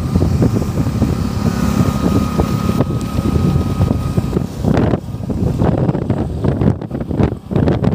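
Wind buffeting the microphone of a phone filming from a moving vehicle: a loud, gusty, rumbling rush with road and traffic noise under it.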